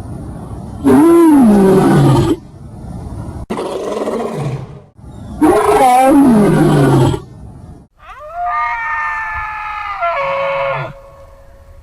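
A large animal roaring twice, each roar about a second and a half long, rising and then falling in pitch. Near the end a different, drawn-out animal call starts with an upward glide, holds steady, then drops lower before stopping.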